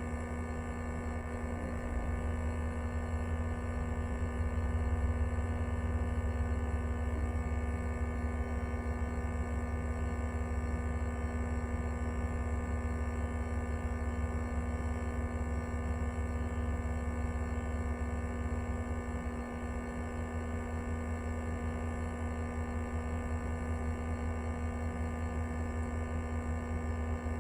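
Passenger train interior while running: a steady low rumble with a constant electrical hum.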